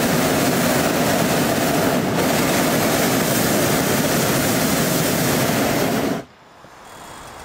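Hot-air balloon's propane burner firing overhead, loud and steady, cutting off suddenly about six seconds in.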